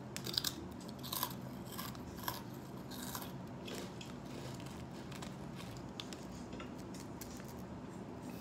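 Crunching of someone biting and chewing a sweet rice cracker close to the microphone. A run of sharp crunches comes in the first three seconds, then fainter chewing.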